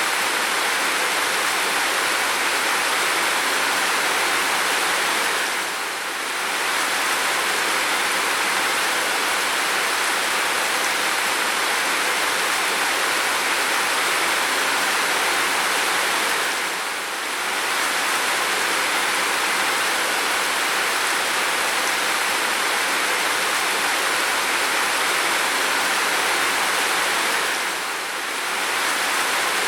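Heavy, steady rain: a dense, even hiss of pouring rain that briefly softens three times, about eleven seconds apart.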